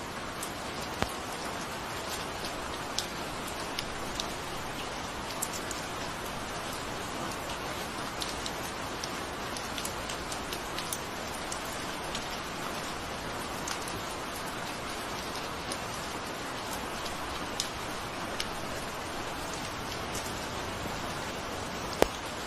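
Steady rain falling, an even hiss with scattered sharp drop impacts; one drop hits much louder near the end.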